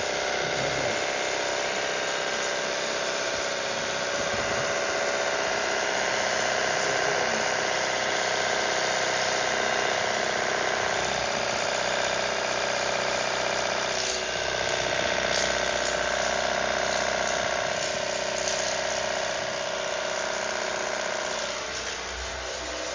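High-speed electric motor of a battery-powered tool running steadily with a whine over a rush of air. It dips briefly about fourteen seconds in and eases off near the end.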